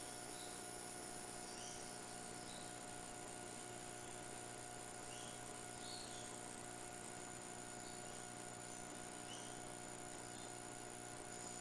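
Steady faint hum of several fixed tones over an even hiss, with faint short chirps now and then.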